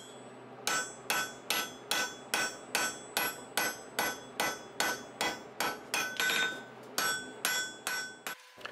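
A blacksmith's hammer striking a hot steel bar on an anvil in an even rhythm of about three blows a second, each blow with a short metallic ring. This is the drawing down of the bar's end into a taper. The blows begin about a second in and stop shortly before the end.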